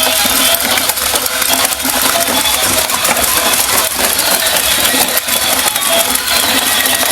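Battery-powered walking toy horse running: its small motor and gears whir steadily while its plastic parts clatter in a dense rattle.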